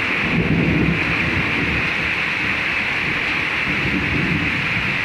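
Rain falling steadily, with thunder rumbling low in two swells, the first about half a second in and the second about three and a half seconds in.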